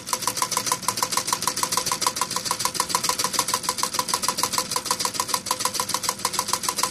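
Hog Stirling engine running at speed and belt-driving a Wilesco woodcutter toy, with a rapid, even clacking of about eight clicks a second.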